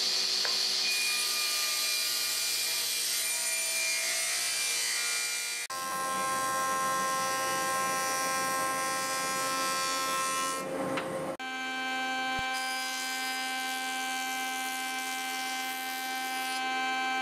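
Three woodworking machines run in turn, each a steady motor-and-cutter whine, changing abruptly twice. First a table saw, then a thickness planer, then a jointer.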